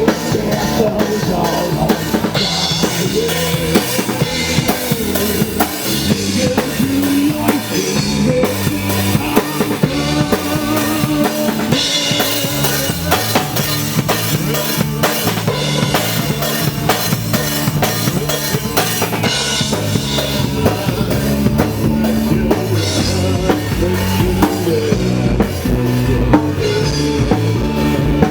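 Rock band playing live on stage, an instrumental passage led by a full drum kit, with kick drum and snare strokes over other instruments.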